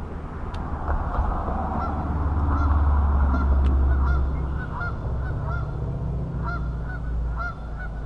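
Geese honking over and over, short arched calls about twice a second starting a couple of seconds in, over a steady low rumble.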